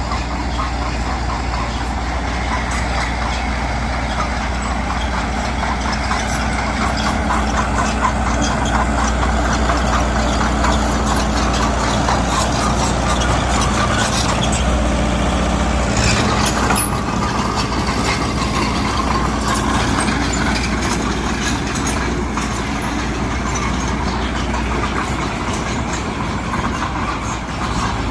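Heavy diesel earthmoving machines, a bulldozer and a dump truck, running steadily under work, with scattered metal clanks and rattles in the middle and a change in the low engine note about halfway through.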